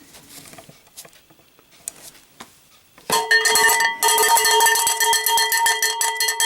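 Cowbell struck over and over in a fast, steady rhythm, starting about three seconds in and getting louder a second later, after a few faint clicks.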